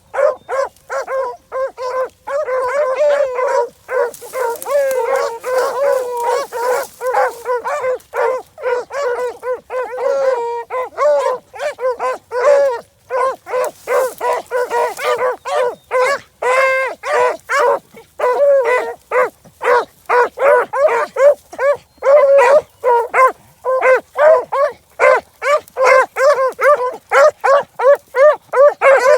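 A pack of rabbit hounds baying and barking on a rabbit's trail. Several voices overlap in a rapid, continuous chorus of loud calls.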